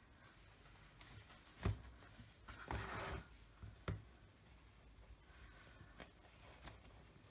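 Quiet handling of a ring-bound card book on a cutting mat as it is turned round: a sharp knock, a brief rustle, then a second knock, with a few faint ticks.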